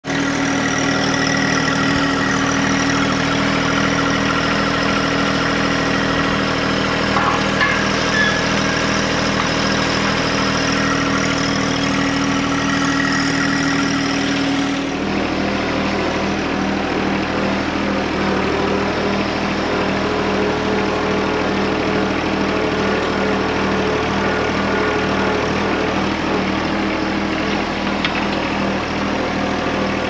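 John Deere 1025R compact tractor's three-cylinder diesel engine running steadily. About halfway through the sound changes abruptly to the engine heard from the operator's seat as the tractor drives.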